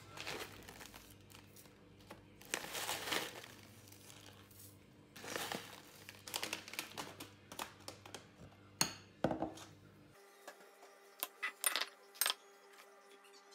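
Dried wakame flakes being shaken from a crinkly plastic packet into a glass bowl, in several rustling bursts. A few sharp clicks and clinks follow near the end.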